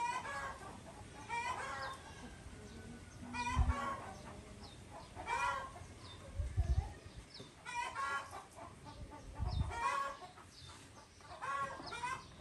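Chickens clucking, a short call every second or two, with three low thuds.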